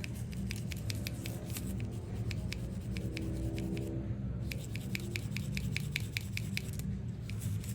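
Small cleaning brush scrubbing inside an AirPods charging case: rapid scratchy strokes, several a second, with short pauses about four seconds in and near the end, over a steady low hum.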